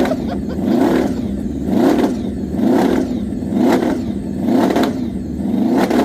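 Honda VFR750 drag bike's V4 engine being revved over and over, the pitch rising and falling about once a second.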